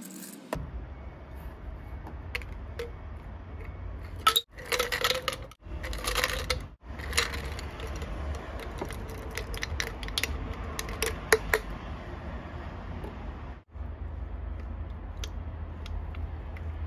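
Ice cubes tipped from a glass jug into a tall glass, clinking and rattling against the glass in a few short bursts between about four and twelve seconds in, the sharpest clinks near the end of them. A low steady hum runs underneath.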